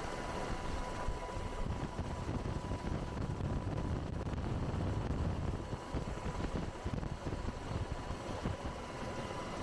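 Military helicopter running: a steady low rumble with a thin, steady high whine over it.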